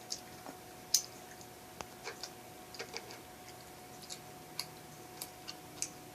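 Faint, irregular small clicks and taps, about a dozen scattered over several seconds, over a low steady hum.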